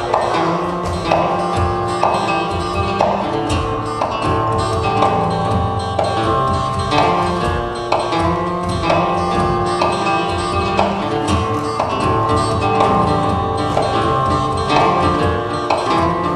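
Acoustic guitar played live in an improvised piece: rhythmic strumming over held chords, in a pattern that repeats about once a second.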